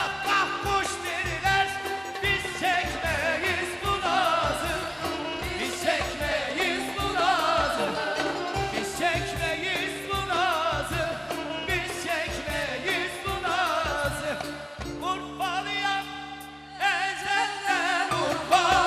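Turkish folk-pop music with singing: a wavering, ornamented melody over a steady drum beat. The beat drops out briefly near the end before the band comes back in.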